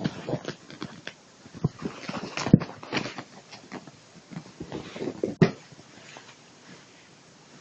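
A kitten scuffling and play-fighting with a sleeved arm on a fabric sofa: irregular rustling and rubbing of cloth with bumps and knocks, the loudest about two and a half and five and a half seconds in, then it goes quiet.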